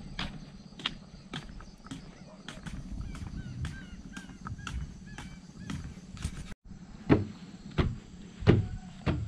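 Footsteps of someone walking at a steady pace along a trail, about two steps a second. After a cut about two-thirds of the way in, the steps become louder and heavier.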